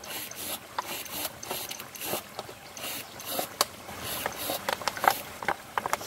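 Clear plastic water bottle crackling and clicking as it is worked by hand, irregular sharp clicks, over the steady rush of a small stream cascade.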